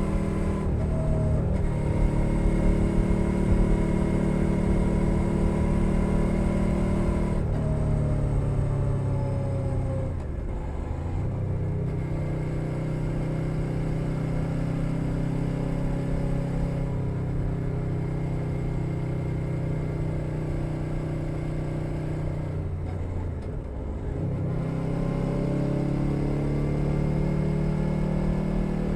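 2021 Suzuki SV 650's V-twin engine through a LeoVince Nero exhaust, running under way. Revs dip and climb back about ten seconds in and again near the end as the rider eases off and pulls away.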